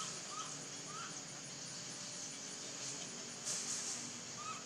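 Outdoor ambience: insects hum steadily at a high pitch. Three short chirping calls come in the first second and another near the end, and a brief louder hiss comes about three and a half seconds in.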